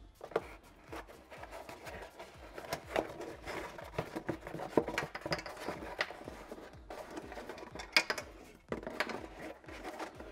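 A car door speaker, its plastic mounting bracket and a speaker baffle cup being handled and fitted together by hand: scattered plastic clicks, taps and rustling, with the sharpest click about eight seconds in.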